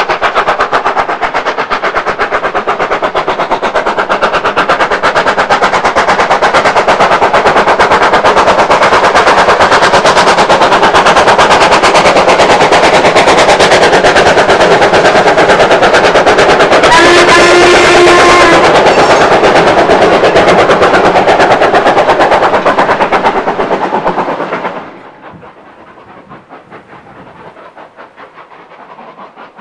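Small industrial saddle-tank steam locomotive working hard up a steep bank with a freight train, its exhaust beating in a rapid, loud, continuous rhythm. A brief steady tone sounds about two-thirds through, and near the end the beats drop abruptly to a much fainter, distant level.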